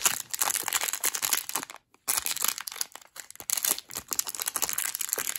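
A small plastic wrapper crinkling and tearing as it is pulled open by hand to get at a tiny vinyl figure, with a brief pause about two seconds in.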